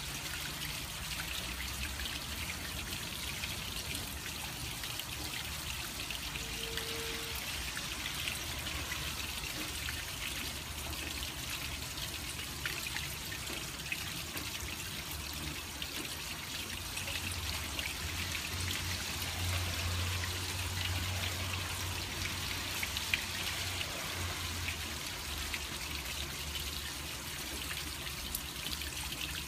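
Rainwater trickling and splashing down a copper cup rain chain, dripping from cup to cup, with rain falling all around. It makes a steady splashing hiss with many small drip ticks.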